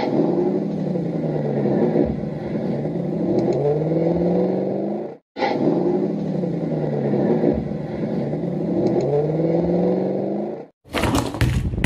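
An engine revving up and down over and over, a sound effect whose pattern plays through twice with a brief break about five seconds in. Near the end comes a short burst of clattering.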